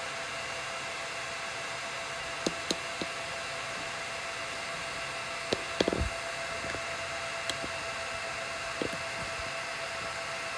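Supermicro SYS-E300-9D server's cooling fans running at high speed just after power-on, a steady rushing hiss with a constant whine in it; the high fan speed at first boot is normal. A few light knocks come through, the loudest about six seconds in.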